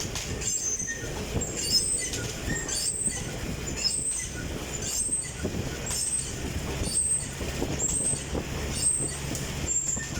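Stationary fan exercise bike being pedalled: a low running rumble with a high squeak repeating about once a second.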